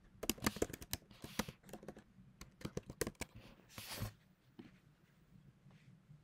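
Typing on a computer keyboard: a quick run of key clicks for about three seconds, then a heavier key press about four seconds in and a few scattered taps after it.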